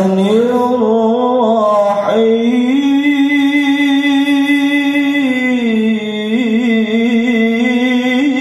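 A man reciting the Qur'an in melodic qori style, amplified through a PA loudspeaker. The voice moves through ornamented turns and holds one long note for about three seconds in the middle.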